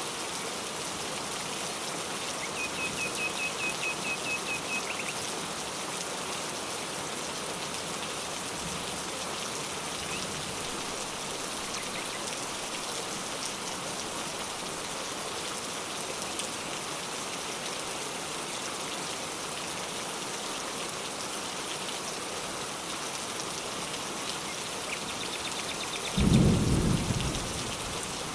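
Steady rain falling, with a bird's rapid trill of high notes a few seconds in. A short low rumble of thunder near the end is the loudest sound.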